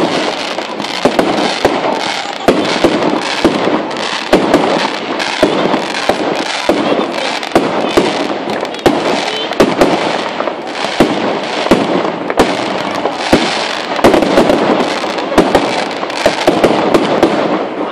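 Aerial firework shells bursting in quick succession, several sharp bangs a second over continuous crackling.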